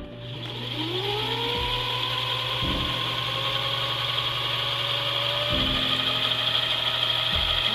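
An electric motor spinning up: its whine rises in pitch over the first few seconds, then holds steady over a high hiss.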